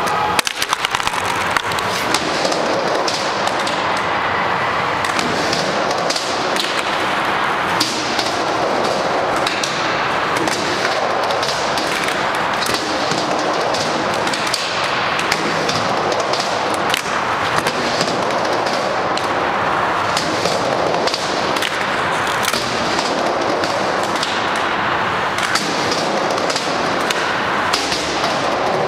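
Skateboard riding a mini ramp: urethane wheels rolling with a rushing sound that swells and fades every couple of seconds as the rider goes back and forth, with sharp clacks and knocks from the wheels, trucks and board against the ramp and coping.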